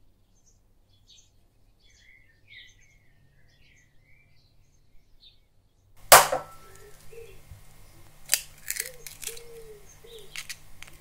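Faint chirps in the first half. Then a sharp knock about six seconds in, followed by clicks and snaps of an eggshell as a raw egg is cracked over a ceramic bowl.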